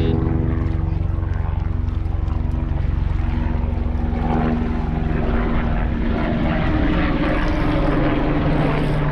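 An engine running steadily: a pitched drone over a heavy low rumble, its pitch shifting slightly about halfway through.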